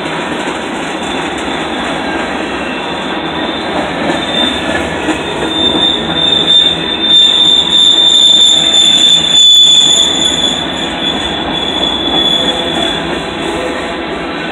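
Freight train of tank cars and a covered hopper rolling past close by, steel wheels rumbling and clattering on the rails. A high, steady wheel squeal comes in about four seconds in, is loudest in the middle, and fades toward the end.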